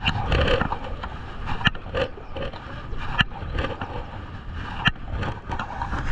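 A kayak on a river: water sloshing against the boat with a low rumble, broken by several sharp knocks and scrapes about a second and a half apart.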